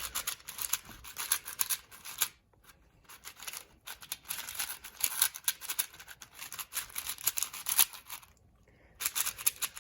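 MGC 4x4 magnetic speedcube being turned fast by hand: rapid plastic clicking and scraping of the layers. The brand-new cube is still sandy and not smooth out of the box. The turning pauses briefly about two and a half seconds in and again near the end.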